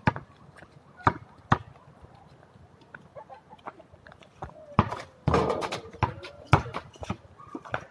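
A basketball bouncing on a concrete court: a handful of sharp, irregularly spaced thuds before a shot, with a louder, noisier burst about five seconds in.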